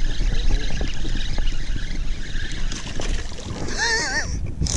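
Spinning reel being cranked to bring in a small bass, under a steady rush of wind on the microphone and water noise, with light irregular ticks. Near the end comes a short wavering whistle-like sound, then a brief burst of noise.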